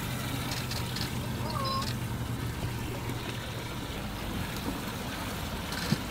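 Steady low hum of idling outboard boat motors, with water dripping and splashing as bass are lifted out of a boat's livewell. A single sharp knock near the end.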